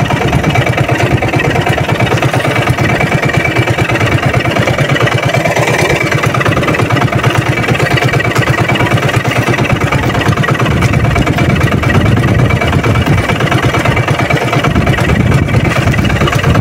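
Small engine of an outrigger fishing boat running steadily under way, a fast, even chugging.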